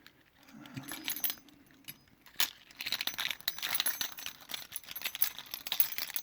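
A bunch of keys jangling and clicking in the hand, mostly from about two seconds in, as the right key is used to lock a Ruko pin-tumbler cylinder.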